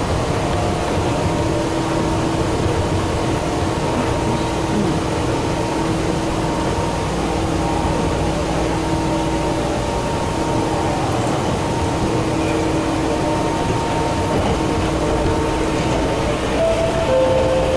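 Meitetsu 6000 series electric train running along the line, heard from inside the front car: a steady rumble of wheels on rail under a constant hum of motor and gear tones, with a couple of new tones coming in near the end.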